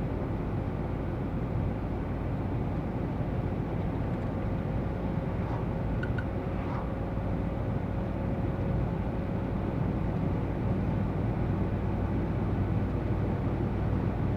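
GAZ Sobol 2752 van driving at a steady speed, its engine and road noise heard from inside the cabin as an even, unchanging low rumble.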